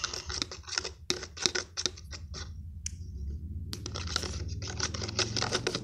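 A pen scraping and clicking against the inside of a small cup while stirring a lotion-and-salt slime mixture: rapid scratchy clicks, with a short pause about three seconds in.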